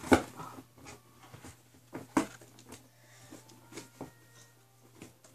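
Two sharp knocks about two seconds apart, the first the loudest, with light clicks and rustles between them as cardboard and craft materials are handled.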